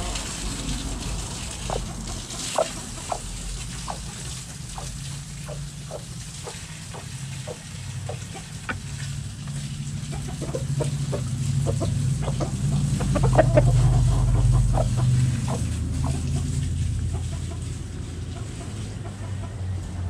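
Domestic hens clucking: many short clucks scattered throughout, over a low rumble that swells to its loudest about two-thirds of the way through.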